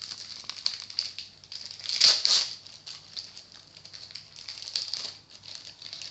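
Crinkling and crackling of a card pack's wrapper and cards being handled, with a louder crinkle about two seconds in.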